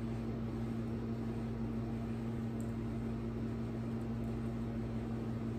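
Steady low electrical hum with a faint hiss: room background noise, like a running air conditioner or fan, unchanging throughout.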